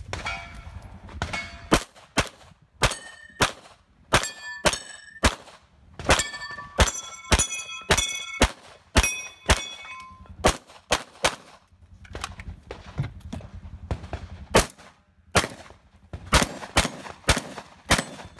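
Rapid gunshots, many followed by the ringing clang of steel targets being hit. The shots come in quick strings of two or three a second, with a lull of a few seconds past the middle, then more shots.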